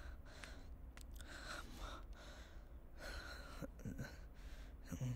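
A man breathing heavily, with a few slow, audible breaths in and out.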